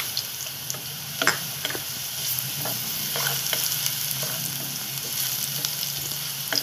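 Onion and minced garlic sizzling in hot oil in a nonstick pan, stirred with a wooden spatula that clicks and scrapes against the pan now and then. A faint low hum runs underneath.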